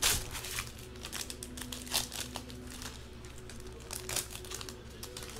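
Foil trading-card pack wrappers crinkling and crackling as they are handled and opened by hand, in irregular sharp crackles; the loudest comes right at the start, with another about two seconds in.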